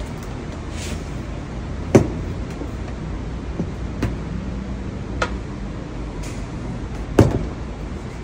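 Sample boards knocking and clacking against each other as hanging wood-look display panels are flipped through and a loose sample board is held up to them: a handful of sharp knocks, the loudest about two seconds in and near the end, over a steady low hum.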